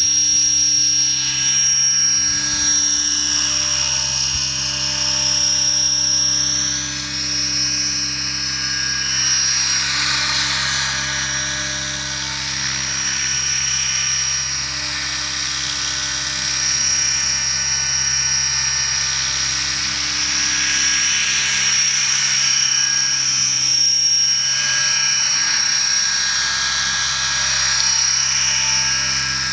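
Nitro-engined RC trick helicopter flying, its engine and rotors giving a steady high-pitched whine. The pitch and loudness swell and fade every few seconds as it moves about.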